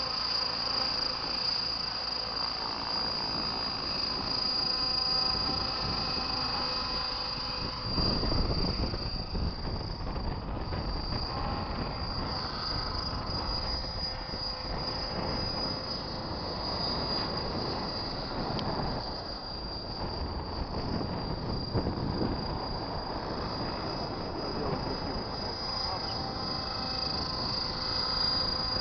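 Large radio-controlled helicopter in flight, a steady high-pitched whine from its drive over the whir of its rotors. From about a third of the way in, wind rumbles on the microphone.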